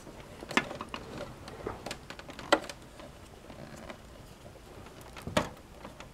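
Scattered clicks and knocks from hands handling cable connectors and plastic parts inside a desktop computer case, with three sharper clicks about half a second, two and a half and five and a half seconds in.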